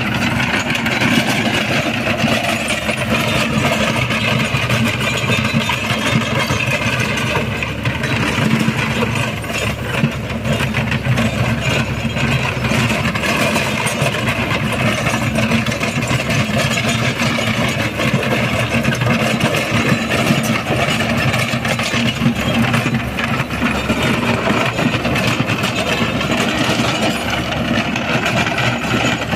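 Mahindra 475 DI Sarpanch tractor's diesel engine running steadily under load, driving a Shaktiman rotavator that tills dry soil.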